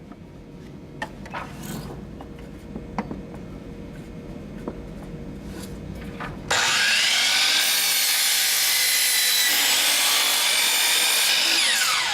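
A few light clicks of wood being handled and positioned. Then, about halfway through, a power miter saw starts abruptly and runs loudly for about five seconds as its blade cuts through wooden lid trim. Its whine falls away near the end as the blade spins down.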